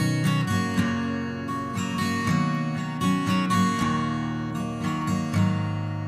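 Instrumental music: acoustic guitar strumming chords with no singing. Near the end a last chord is held and fades.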